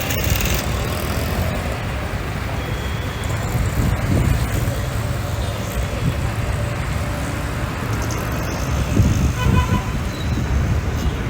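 Road traffic going by with a steady low rumble, and short vehicle horn toots about nine seconds in.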